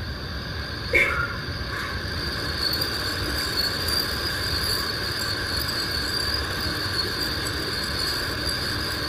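A steady, high insect chorus over a constant background hiss, with a brief click about a second in.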